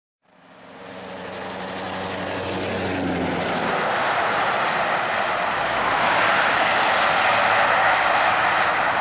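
Scania R580 truck's straight-piped V8 diesel engine as the truck drives past and pulls away. The sound grows louder over the first few seconds, the engine's low note giving way to a steady rush of exhaust and road noise.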